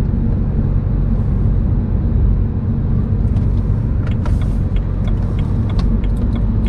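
Steady low rumble of a car on the move, with scattered light clicks and ticks from about three seconds in.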